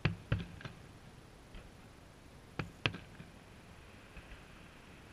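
Distant aerial firework shells bursting: a series of short, sharp bangs, three in quick succession at the start, a faint one after about a second and a half, and two more close together a little before the three-second mark.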